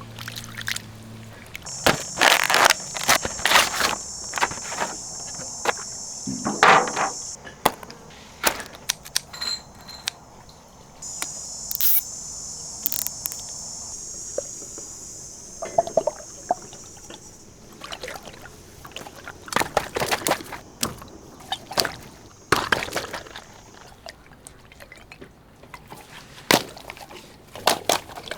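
Water running with a steady high hiss that starts and stops twice, among scattered sharp splashes and handling knocks.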